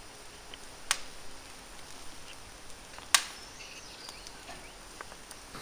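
Two sharp knocks about two seconds apart, the second louder, as a barbecue fork and a piece of grilled meat are handled on a wooden board, with a few faint ticks between them.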